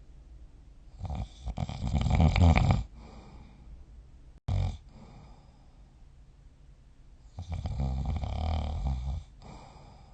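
A person snoring in sleep: two long, loud snores about six seconds apart, each lasting nearly two seconds, with a short burst of sound between them.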